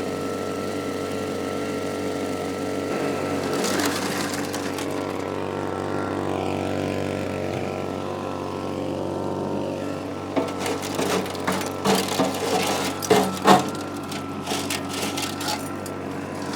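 Vac pac's small gasoline engine running steadily while it sucks up desert gravel. From about ten seconds in, stones clatter irregularly through the hose.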